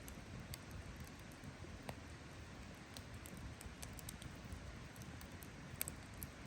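Wood campfire crackling with irregular small pops and snaps, the sharpest near the end, over a faint steady low rumble.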